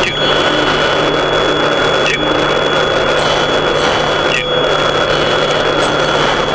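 U-2 cockpit noise with the angle-of-attack aural warning sounding as a steady high tone throughout. A low beeping, about two beeps a second, runs over the first two seconds or so. A short soft whoosh comes roughly every two seconds over a low steady hum.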